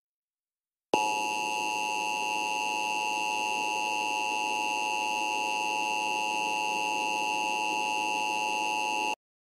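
Emergency Alert System two-tone attention signal: a steady, shrill dual tone that starts about a second in, holds unchanged for about eight seconds and cuts off sharply. It announces an emergency alert message, here a tornado warning.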